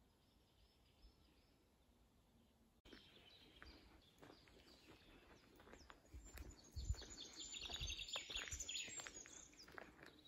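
Wild birds singing in a pine forest. It is almost silent at first; then, from about three seconds in, come scattered chirps and a fast trill of repeated high notes that is loudest near the end. A few low thumps on the microphone sound in the middle.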